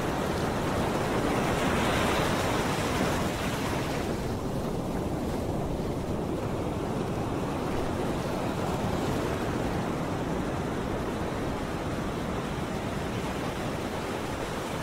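Steady sea ambience: water washing and wind making an even hiss, which thins out in the highs about four seconds in.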